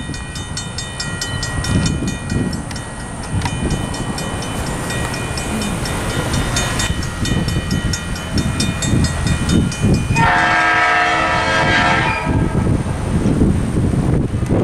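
Railroad crossing bell ringing in a fast, steady rhythm as the crossing activates for an approaching train, with wind gusting on the microphone. About ten seconds in, the locomotive sounds its horn in one loud blast of about two seconds.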